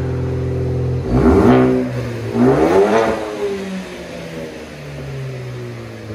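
A 2015 Ford Focus ST's turbocharged 2.0-litre four-cylinder, heard through a Carven TR-series muffler with the rear muffler deleted and a dual tip. It idles, is revved up sharply about a second in, then revved again a second later, and settles back to a steady idle.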